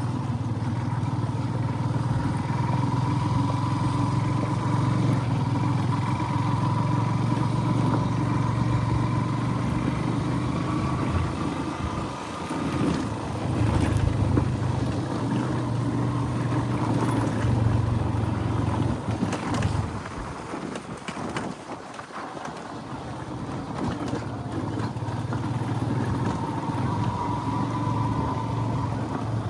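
Steady low engine and road noise from a vehicle on the move. It eases off briefly about twelve seconds in, and again for a few seconds after the twenty-second mark, then picks back up.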